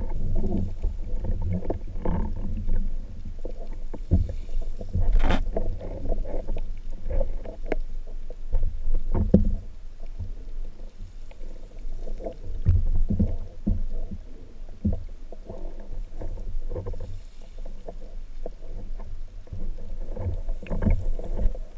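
Muffled underwater sound through an action camera's waterproof housing: a low rumble of moving water with irregular knocks and clicks from the speargun and shooting line being handled, one sharper click about five seconds in.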